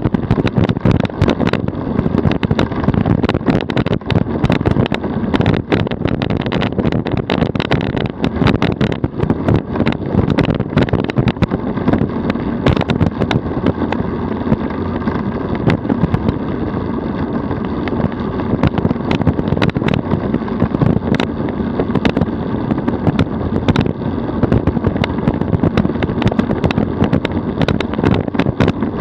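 DF velomobile rolling at about 42 km/h on asphalt: a steady rumble of tyres and shell, with frequent sharp rattling clicks all through.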